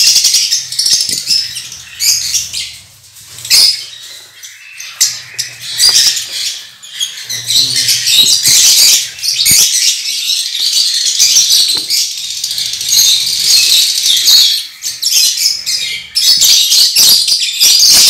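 Flock of small aviary birds chattering and chirping continuously, with scattered clicks and knocks.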